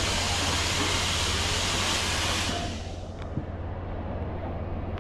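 Fire hose spraying water with a loud, steady hiss that dies away about halfway through, leaving a steady low engine hum underneath and a single sharp click shortly after.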